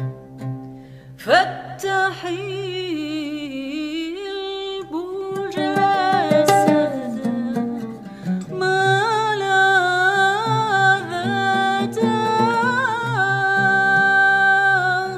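A singing voice enters with a rising swoop about a second in and carries a slow, ornamented melody with vibrato and long held notes, over a plucked string accompaniment with a low sustained tone beneath.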